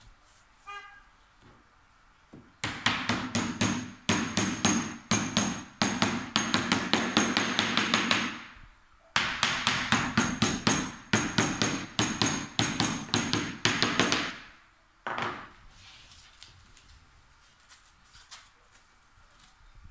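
Hammer tapping rapidly along the edge of a wooden canvas frame to seat the canvas. The taps come in two runs of about five seconds each, with a short pause between them, then one last tap.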